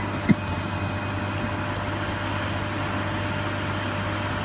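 Steady low machine hum, with one short sharp click about a third of a second in.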